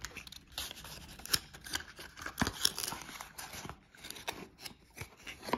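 Paperboard perfume box being opened by hand: the tuck flap scraping free and the card rustling, with irregular sharp clicks and scrapes.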